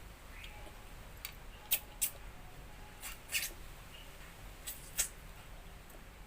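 Eating sounds close to the microphone: about seven short, sharp crunches and smacks at irregular intervals as someone chews.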